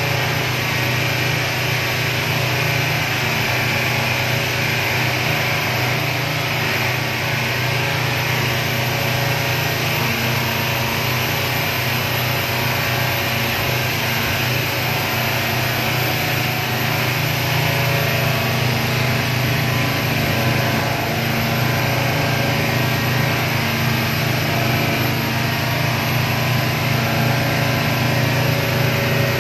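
Motorboat engine droning steadily at cruising speed, with the rush of water and wind as the hull runs through the sea.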